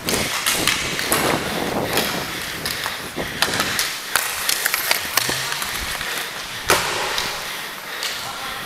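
Inline hockey skate wheels rolling and scraping over a plastic sport-court rink floor close to the microphone, with frequent sharp clacks of sticks and puck; the loudest clack comes near the end.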